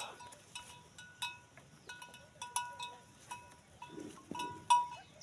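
Cowbell on one of the cattle clanking irregularly, two or three short ringing strikes a second, the loudest near the end.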